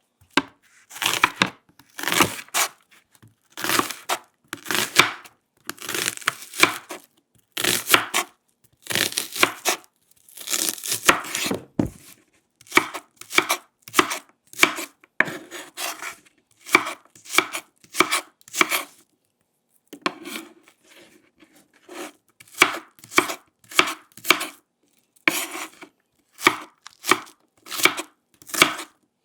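Kitchen knife chopping onion and other vegetables on a wooden cutting board: runs of quick cuts separated by short gaps, with a brief pause about two-thirds of the way through.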